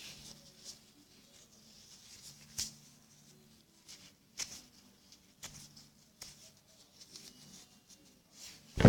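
Toilet paper being handled and torn into pieces by hand: faint, short rips and rustles every second or so, with a louder burst of rustling noise right at the end.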